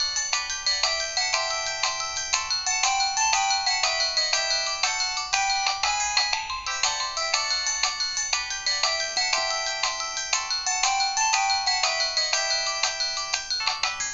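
Modottel WTE-300 mobile phone playing a 16-voice polyphonic MIDI ringtone through its small speaker: a quick, busy melody of bright electronic notes with no bass.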